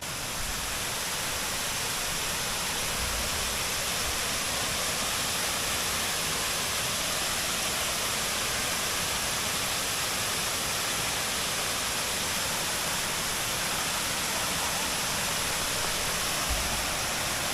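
River water rushing steadily, a constant even hiss of flowing water.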